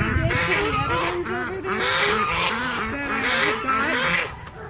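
A flock of domestic geese honking, many calls overlapping one another without a break.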